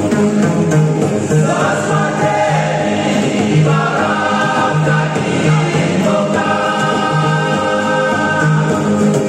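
A men's vocal group singing a worship song in the Biak language, the voices coming in about one and a half seconds in with long held notes. Under them, strummed acoustic guitars and a plucked bass go back and forth between two low notes about twice a second.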